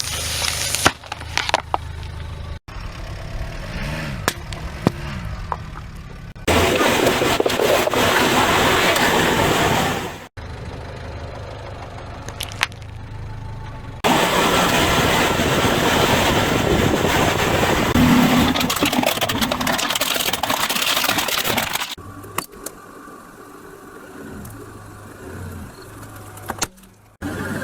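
A car's tyres roll over and crush a series of objects in short edited clips, with crackling, crunching and cracking. There are two long stretches of loud, even noise and quieter gaps where the car is heard running.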